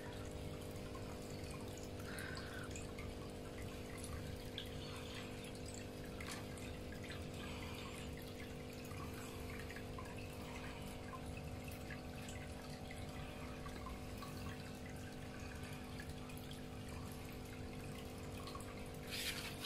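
Aquarium aeration running: a steady electric pump hum under the bubbling and trickling of air bubbles rising from a bubble bar, with a short louder hiss near the end.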